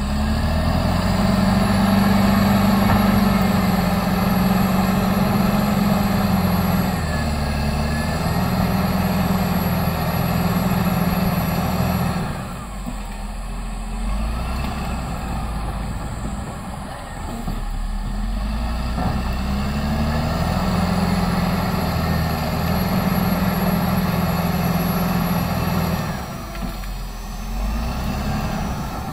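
Cat D7R crawler bulldozer's diesel engine working hard as it pushes brush, with a thin high whine over the engine. It revs up about a second in, eases off around twelve seconds, revs up again around twenty seconds and drops back near the end.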